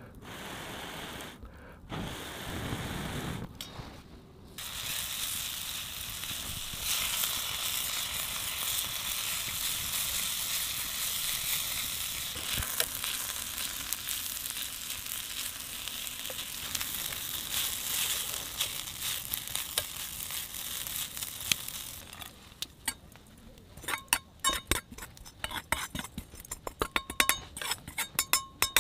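Noodles and bean sprouts sizzling in a hot wok as they are stir-fried with tongs, a steady frying hiss. Near the end the sizzle drops away into a run of sharp clicks and taps.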